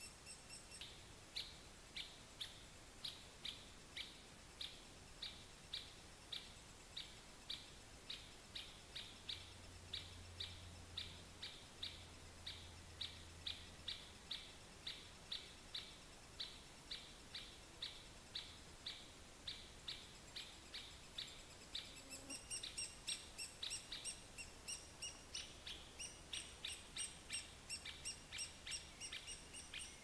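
Three-toed woodpecker calls: short, high chirps repeated evenly at about two to three a second. After about 22 seconds they grow busier, as a second series of calls overlaps the first.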